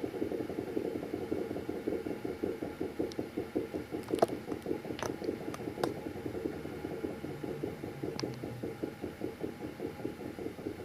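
Steady rhythmic mechanical knocking, about seven beats a second, with a few sharp clicks partway through.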